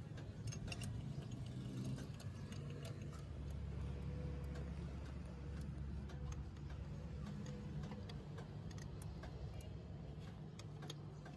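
Light, irregular clicks and taps of hands handling carburetor fittings, hoses and wiring in a car's engine bay, over a low steady hum.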